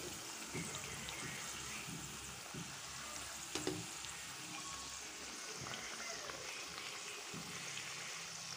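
Battered fritters (bora) deep-frying in hot oil in a wok: a steady, even sizzle, with a few light knocks as metal tongs turn them.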